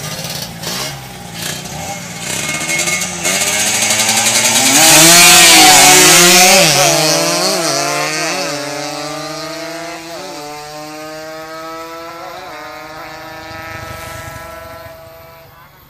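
Drag-racing motorcycle engine accelerating hard. It is loudest about five to six seconds in as the bike passes close, then fades into the distance. The engine note climbs and drops back several times as the rider shifts up through the gears.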